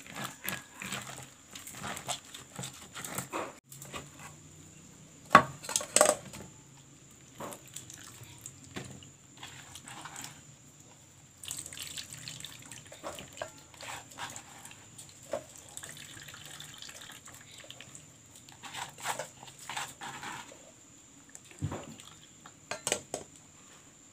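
Grated coconut being squeezed by hand in water in a plastic basin to press out coconut milk: wet squelching, splashing and dripping, with a pour of liquid into a pot about halfway through. Two sharp knocks about five and six seconds in are the loudest sounds.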